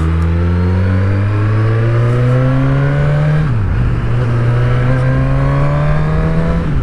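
Suzuki Katana 1000's inline-four engine accelerating hard, its pitch climbing steadily, dropping sharply as it shifts up about three and a half seconds in, then climbing again to a second upshift near the end.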